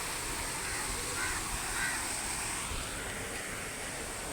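Water fountain splashing and rushing steadily, with a couple of short bird calls about one and two seconds in.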